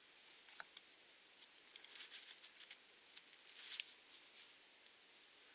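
Faint clicks and scratching of a small metal blade against a plastic drill trigger switch as its retaining plate is pushed aside and a wire is pulled from its terminal. The ticks come in a cluster about two seconds in and again, loudest, just before four seconds.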